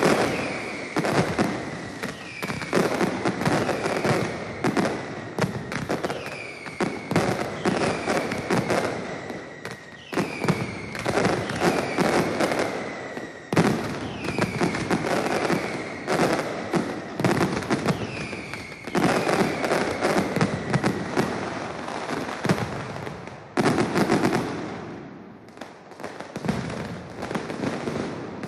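Mascletà by Pirotecnia Caballer: a dense, unbroken barrage of firecrackers (masclets) going off in rapid succession, with whistling fireworks giving falling whistles over and over. The barrage eases briefly near the end, then picks up again.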